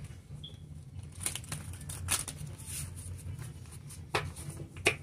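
Tarot cards being handled and shuffled: a series of sharp snaps and papery rustles, with a few louder flicks about a second apart and two near the end, over a steady low hum.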